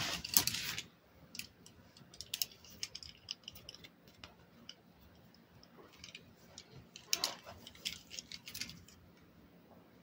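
Steel Hiatt 104 Darby handcuffs being picked up and handled: a rustle of nylon cloth at the start, then the chain links and swivel clink in scattered light clicks, in two spells, from about one to four seconds and again around seven to nine seconds.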